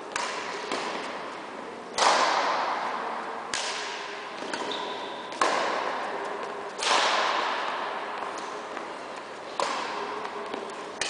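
Badminton rackets striking a shuttlecock in a rally: a series of sharp cracks every one to two seconds, the hardest hits about two, five and a half and seven seconds in. Each hit rings on with the long echo of a large sports hall.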